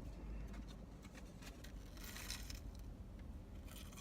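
Quiet car cabin: a faint steady low hum with a few soft rustles.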